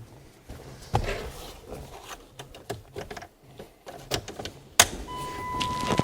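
Car keys clicking and rattling as they are picked up and fitted into the ignition, with a sharp click near the end. Right after it a steady electronic warning tone starts sounding.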